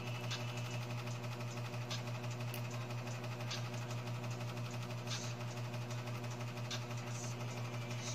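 Steady low hum of a small motor or electrical device, with a few faint light clicks from steel tweezers handling small metal parts of an iPhone 6s display assembly.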